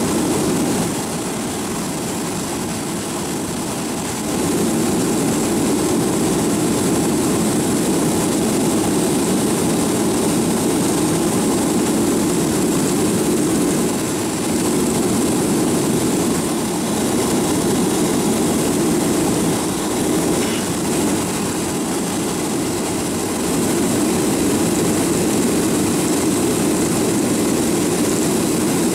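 Boeing 737 jet engines heard from inside the cabin by the wing: a steady low rumble with a faint hiss above it. It grows louder about four seconds in.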